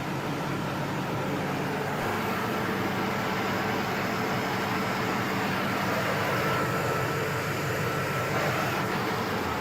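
Corvette LT1 V8 idling steadily, running up to operating temperature to bleed air from a freshly refilled cooling system.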